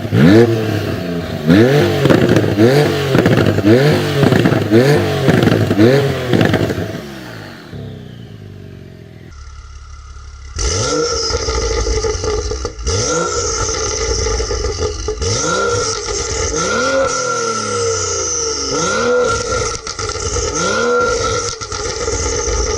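Performance car exhaust revved in repeated sharp throttle blips, about one a second, with crackles and pops between them. After a cut about ten seconds in, a second car is revved the same way.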